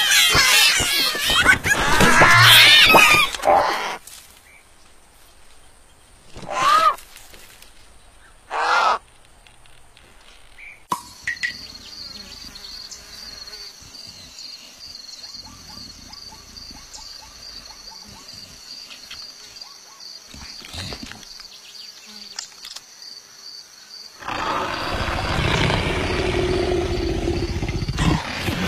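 Cartoon nestlings squealing loudly for about four seconds, then two short cries. Then faint savanna ambience with a steady high buzz, and near the end a loud leopard growl lasting about four seconds.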